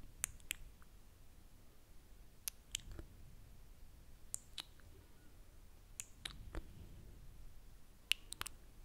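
Wet mouth clicks and lip smacks made right against a microphone, with a finger pressed to the lips. They come as sharp separate clicks in small clusters of two or three, a second or two apart.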